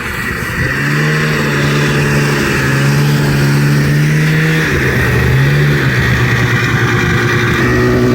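Snowmobile engine running and revving: its note climbs about a second in, holds steady, drops back around the middle, then picks up again near the end.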